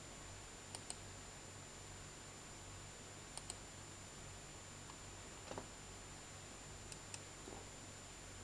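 Computer mouse button clicked in three quick pairs, a few seconds apart, with a duller tap in between, over a faint steady electrical hum and hiss.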